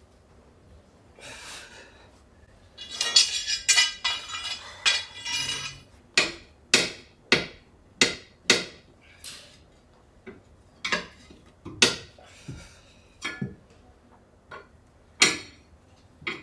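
Metal tools working an HGV truck tyre off its steel wheel rim: a scraping, rattling stretch a few seconds in, then a run of sharp metallic knocks about one a second.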